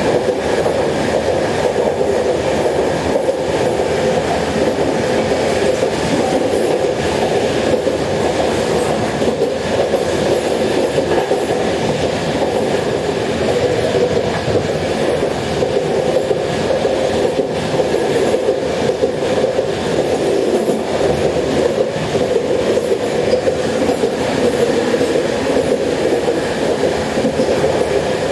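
Steady rumble of a train carriage running at speed, with faint clickety-clack of the wheels on the rail joints.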